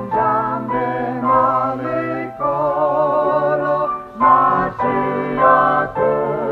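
A hymn being sung. The voices carry clear vibrato and come in phrases, with short breaks between them about a third of a second in, at about two and a half seconds, and around four and six seconds in.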